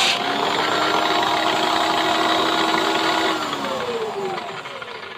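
Electric drill motor running at steady speed, then switched off about three seconds in, its whine falling in pitch as it spins down and fades.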